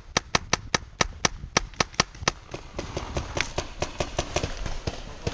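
Paintball marker firing rapidly, about five or six shots a second, with the run stopping a little over two seconds in. Fainter, scattered paintball shots carry on after.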